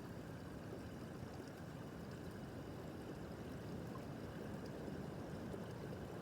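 Small brook babbling over stones: a steady, even rush of flowing water, mostly low and mid in pitch.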